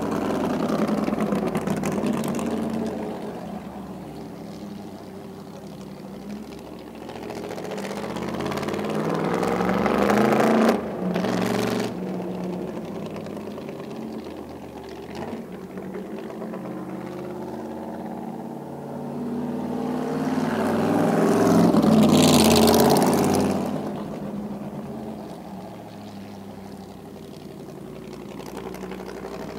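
1952 Cunningham C4R race car's Chrysler Hemi V8 accelerating and driving past in laps, its engine swelling and fading. About ten seconds in it rises, cuts off sharply and gives a short blip, and the loudest pass, with a rushing edge, comes about two thirds of the way through.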